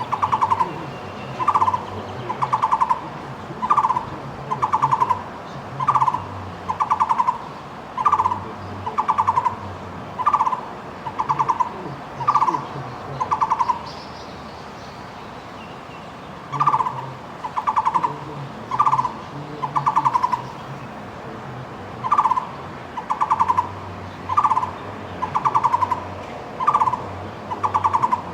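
Taiwan barbet calling: short, rattling notes of one pitch repeated in runs of three, about two notes a second, with a break of a couple of seconds about halfway through and another shorter one later.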